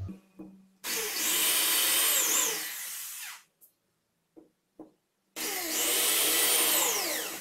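Corded electric drill boring two holes through a melamine panel. On each hole the motor spins up, runs about two seconds and winds down. There is a short pause with a couple of small clicks between the holes.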